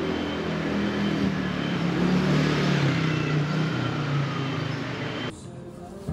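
Street traffic noise with a motor vehicle's engine running close by, its low hum wavering slightly; it cuts off abruptly about five seconds in.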